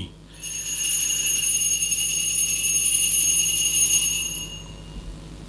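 Altar bells rung at the elevation of the chalice after the consecration. They ring steadily for about four seconds, then die away.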